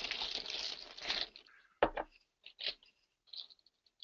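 Soft rustling, then a single sharp click about two seconds in, followed by scattered short crackles.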